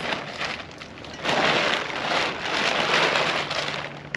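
Folded fabric of a Portal 8-person instant tent rustling and crinkling as it is handled and bundled up in the arms, getting louder about a second in.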